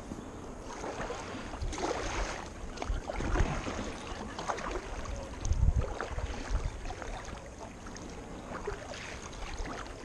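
Kayak paddle strokes splashing and dripping in calm water, a stroke every second or two. A low rumble about halfway through is the loudest moment.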